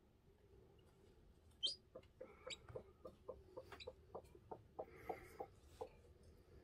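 Faint chicken sounds: two short, high chick peeps a little under a second apart, then a steady run of soft, low clucks, about two or three a second.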